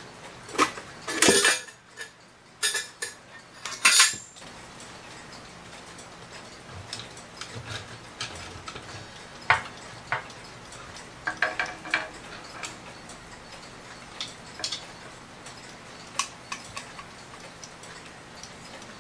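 Metal clock parts being handled as the movement is taken out of a metal mantel clock case: a burst of loud clattering and knocking in the first few seconds, then scattered small metallic clicks and taps.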